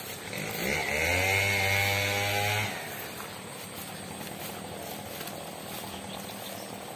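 A small engine revs up and holds a steady pitch for about two seconds, then stops, leaving a steady outdoor hiss.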